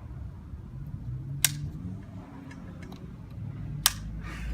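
Two sharp clicks about two and a half seconds apart from a missile-style toggle switch being flipped, with no motor starting: the blade motor is getting no power through a disconnected wire.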